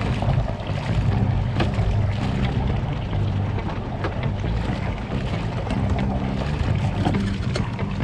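A sailboat under way: a steady low drone with wind and water noise.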